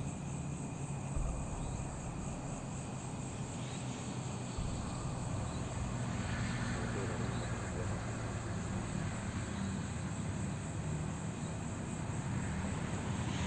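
A low, steady engine drone from a distant motor, growing slightly louder near the end, over the continuous trilling of night crickets.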